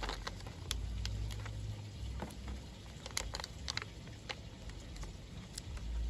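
Paper sticker sheet crinkling and star stickers being peeled off and pressed onto cardstock: scattered short clicks and crackles, two or three a second, over a steady low rumble.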